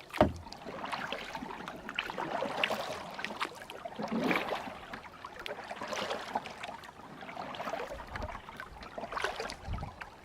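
Water splashing and sloshing around a kayak, swelling every second or two, with a few light knocks.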